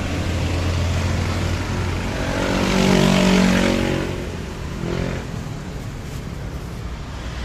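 A motor vehicle passes close by on the road, its engine growing loudest about three seconds in and then fading, over steady traffic rumble.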